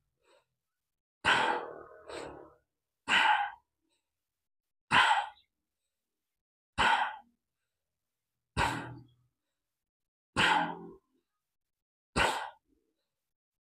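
A man's forceful bellows breaths of bhastrika pranayama, seven short sharp rushes of air about one every two seconds, with silence between.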